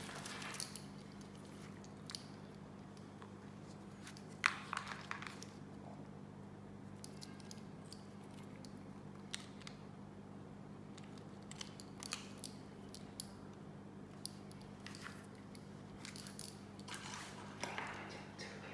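Scattered small clicks and taps from a rubber-armoured rugged phone being handled, its rubber port cover opened and earphones plugged in, with the sharpest click a few seconds in. A steady low hum runs underneath.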